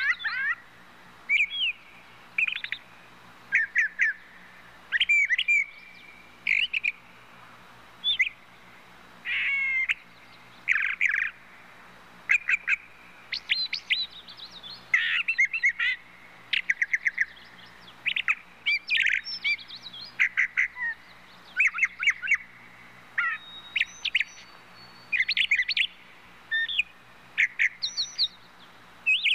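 Birds chirping and calling: many short, sharp chirps and quick gliding notes in irregular bursts, over a faint steady low hum.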